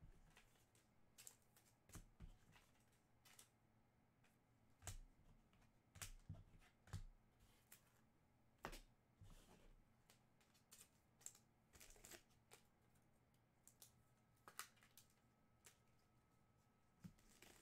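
Faint, irregular clicks and light taps of trading cards being handled and slid against one another, over a low steady room hum.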